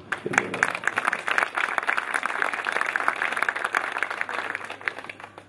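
Audience applauding: many hands clapping densely, dying away near the end.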